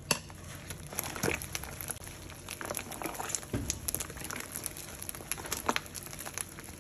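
Crisp chicharrones de viento crackling and crinkling as a spoon stirs them into simmering green salsa in a metal pot, with irregular clicks and scrapes throughout.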